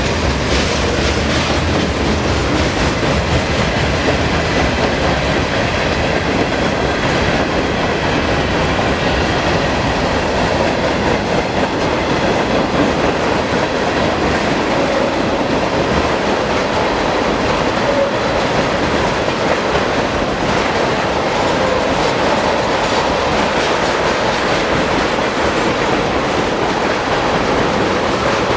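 A train's cars rolling past on the rails, a loud, steady rumble and rattle of wheels on track that holds on without a break.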